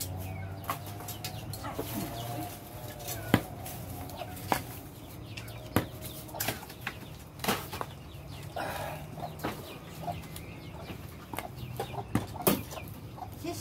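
Meat cleaver chopping hard brown chunks on a round wooden chopping block, with single sharp chops coming irregularly, about one a second.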